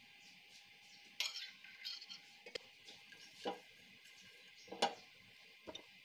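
Silicone spatula knocking and scraping against a nonstick frying pan as it spreads heating oil: about six short clatters, the loudest near the end, over a faint steady hiss.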